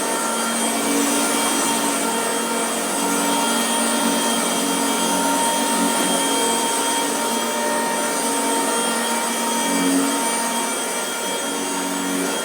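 Old vacuum cleaner, at least 40 years old, running steadily: a loud motor whine over a rushing hiss, its lower hum shifting a little every few seconds.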